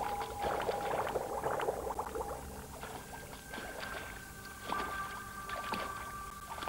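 Water splashing and gurgling as a Eurasian beaver swims at the surface, busy in the first couple of seconds and then a few scattered splashes. Under it are soft, long held music tones that move to a higher chord about halfway through.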